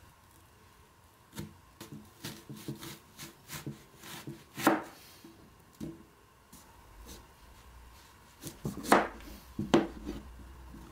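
Kitchen knife slicing through a peeled onion and then a carrot, the blade knocking on a plastic cutting board in a run of short chops. The loudest knocks come about halfway through and twice near the end.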